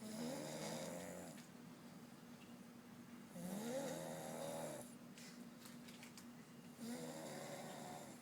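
A person snoring deeply while asleep: three long snores about three and a half seconds apart, each rising in pitch as it starts.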